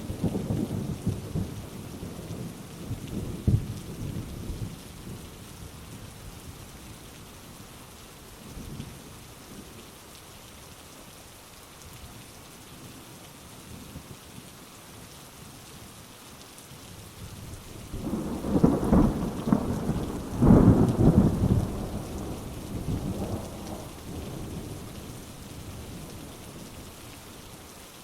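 Heavy rain falling steadily during a thunderstorm. A rumble of thunder dies away in the first few seconds, and about two-thirds of the way through a loud clap of thunder rolls on for several seconds before fading.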